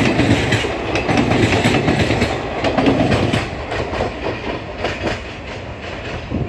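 Indian Railways passenger coaches rolling past close by, their wheels clattering over the rail joints in a run of quick clicks over a steady rumble. The sound fades after the last coach goes by about four seconds in.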